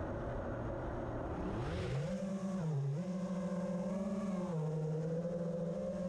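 FPV quadcopter's electric motors and propellers, heard from the camera on the drone: a rough idle hum, then a whine that rises as it lifts off about two seconds in, dips briefly, and settles into a steady buzz that shifts in pitch with the throttle.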